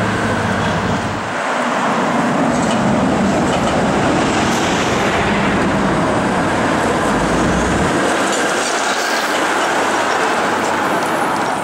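Vintage PCC streetcar passing close by on its steel rails, making a loud, steady rolling noise of wheels on track. The first second or so is street traffic.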